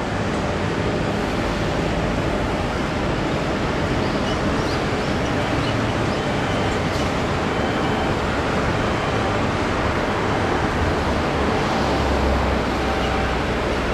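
Steady outdoor background noise of a harbour shipyard and the town around it: a constant low rumble and hiss from distant machinery and traffic, with a deeper rumble swelling about twelve seconds in.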